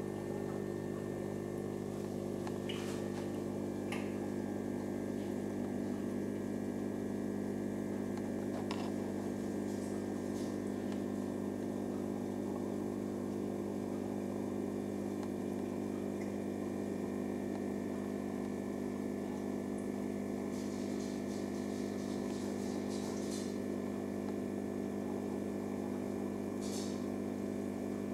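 Aquarium pump running with a steady electrical hum, a few faint clicks scattered through it.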